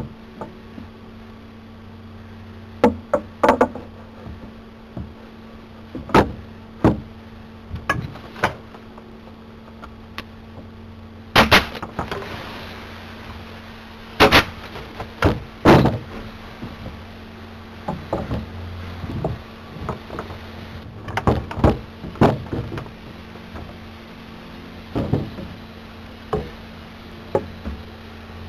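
Irregular sharp knocks and clacks of wooden balusters being set against the rail and template board and tacked in place, some singly and some in quick pairs or clusters. A steady low hum runs underneath.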